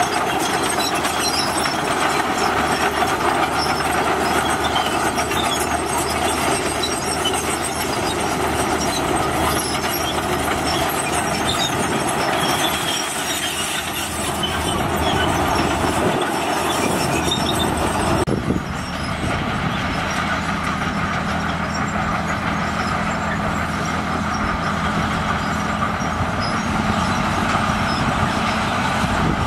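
Komatsu D65PX crawler bulldozer working: its diesel engine runs under load while its steel tracks clank. About 18 seconds in the sound changes suddenly and settles into a steadier low engine hum.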